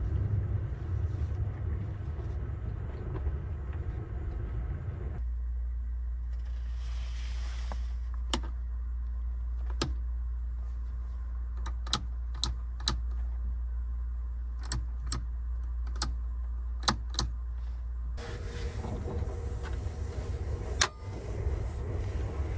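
Push buttons on a train sleeping-car roomette's wall control panel clicking: about ten short, sharp clicks spread over several seconds, over a steady low hum. At the start and again near the end, the running rumble of the moving train inside the car, with one louder click near the end.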